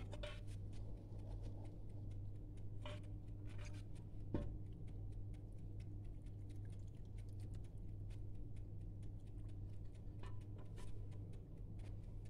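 Quiet cookware handling while meat broth is poured from an aluminium pot onto rice in a cooking pot: scattered light clicks, and one sharper knock about four seconds in, over a steady low hum.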